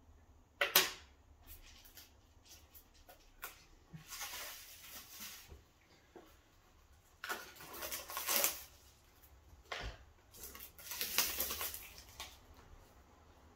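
Plastic bubble-wrap packaging rustling and crinkling in three bursts of a second or so as a small cardboard box is pulled out of it and handled, with scattered light taps and a sharp knock about a second in.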